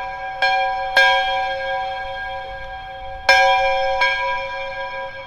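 Background music of bell-like chime notes: four strikes in two pairs, each pair about half a second apart, every note left to ring and slowly fade.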